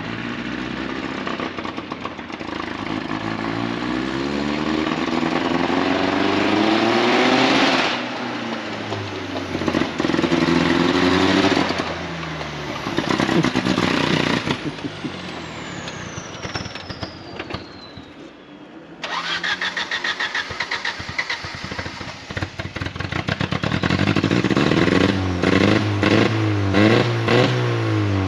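Off-road race car engines revving hard as the cars accelerate up a gravel road toward and past the listener, the engine note climbing in pitch. The sound changes abruptly several times between passes. Midway a thin high whine glides down in pitch, and near the end the engine note pulses rapidly on and off with the throttle.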